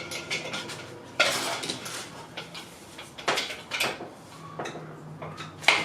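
Steel hand tools clinking and clanking: a breaker bar and socket being fitted and worked against a stuck fastener on a Toyota 2JZ engine, with several sharp metallic knocks, the loudest near the end.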